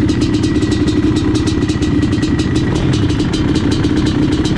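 Dirt bike engine idling steadily, heard up close from the bike itself, a fast even run of firing pulses.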